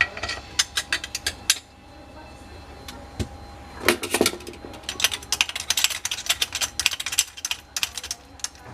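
Metal parts and hand tools clicking and clinking in quick, uneven runs, a burst at the start and a longer run from about four seconds in.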